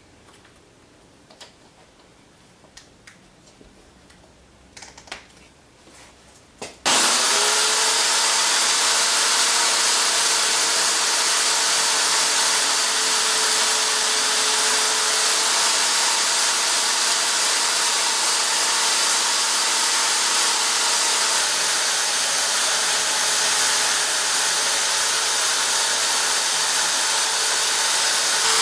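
A few light clicks and taps, then, about seven seconds in, a power tool starts abruptly and runs steadily at a constant whine with no change in load.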